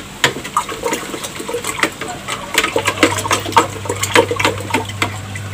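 Diluted liquid fertiliser being stirred inside a plastic watering can: irregular sloshing and splashing.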